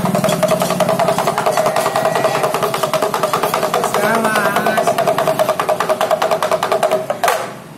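Damru (dugdugi), the small double-headed pellet drum of a monkey show, rattled fast in an even, continuous run of strikes with a ringing pitch; it stops sharply near the end.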